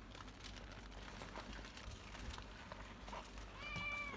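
Faint crinkling and rustling of taro leaves and aluminium foil as hands fold a lu parcel of chopped pork and onion. Near the end, a brief high, steady tone sounds once.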